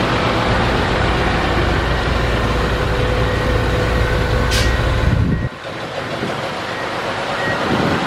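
Heavy diesel engines of a crawler bulldozer and a loaded dump truck running hard in mud, a dense steady rumble. About five and a half seconds in the deep rumble drops away suddenly, leaving a quieter engine sound that rises and falls a little.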